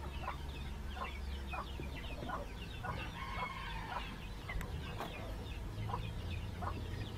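Birds calling outdoors: short calls about once a second, with one longer held call about three seconds in, fainter high chirping throughout, and a low steady rumble beneath.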